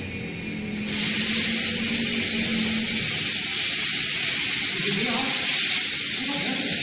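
Basket-lift mechanism of a stainless-steel water-oil mixed fryer raising the mesh frying basket out of the empty tank: a steady hissing noise that starts about a second in and holds level.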